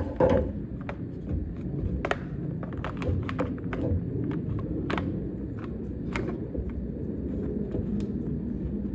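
Scattered clicks and light knocks from parts and tools being handled during small-engine reassembly, over a steady low rumble.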